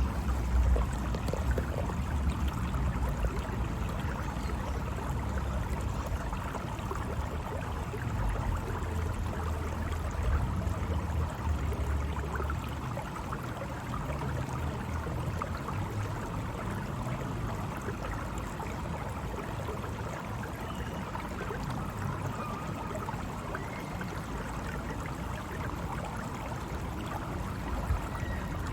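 Steady rush of running water from a park water fixture, with a low rumble under it that is heavier for about the first twelve seconds and then eases off.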